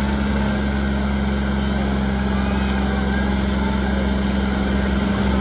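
Diesel engines of John Deere 5310 tractors running loud and steady at a constant pitch, with faint voices in the background.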